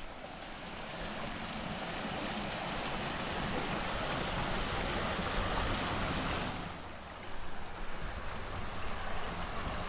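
River water rushing over a rocky bed in a steady hiss that swells, dips about two thirds of the way through, then comes back as a lower, rougher, uneven rumble.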